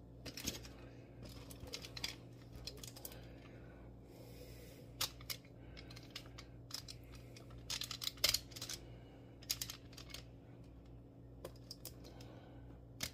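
Light crinkling and clicking of aluminium foil and sticky fries under fingers as sauce-coated fries are pulled apart on a foil-lined sheet pan. The crinkles come in irregular scattered clusters, the busiest about two thirds of the way through.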